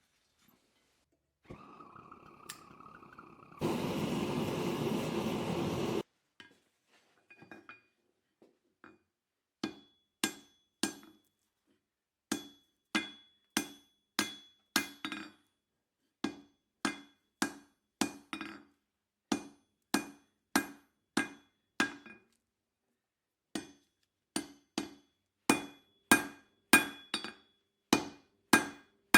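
Blacksmith's hand hammer striking steel bar on an anvil, a steady run of sharp ringing blows about one every half second, starting about ten seconds in. Before the blows there are a few seconds of loud steady rushing noise.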